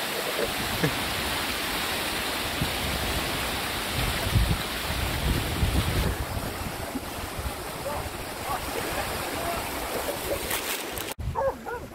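Shallow river rushing over rocks, a steady wash of water noise, with gusts of wind buffeting the microphone. Near the end the sound cuts off abruptly and drops to a quieter background.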